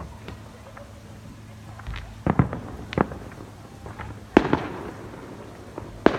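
Fireworks going off: a string of sharp bangs at uneven intervals, a quick pair about two seconds in and others about three, four and a half and six seconds in, each trailing off in a short echo.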